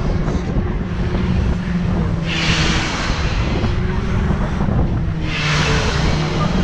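Wind rushing over the microphone of a rider on a spinning Hurricane fair ride, swelling twice into a loud hiss about three seconds apart. Under it runs a steady low hum from the ride's machinery.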